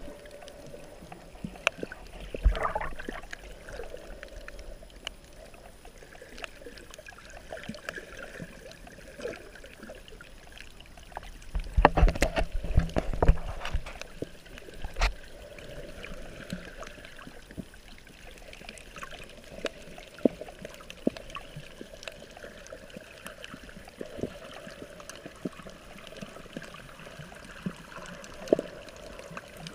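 Muffled sloshing and gurgling of water around a camera held at and just under the sea surface, with scattered small clicks. About twelve seconds in comes a louder cluster of low knocks and splashes, the loudest part.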